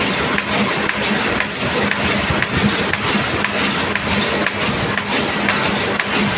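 An engine idling steadily, with a faint regular ticking.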